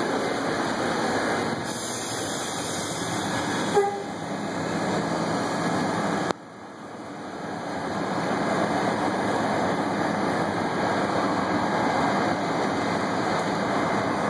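Steady rumble and hum inside an R68A subway car, with a very short horn toot about four seconds in. Past six seconds the sound drops abruptly, then builds back up over the next few seconds.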